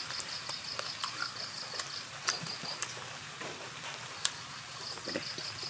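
An insect trilling in a pulsing high buzz that stops about halfway through and starts again near the end, with a few sharp knocks of a knife on a wooden cutting board as grilled pork is sliced, the loudest about four seconds in.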